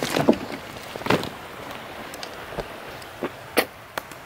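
Footsteps on dry grass and ground: a handful of short, irregular scuffs over a steady background hiss.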